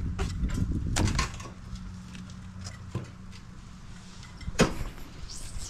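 A few scattered knocks and clatters of things being handled, over a low steady hum.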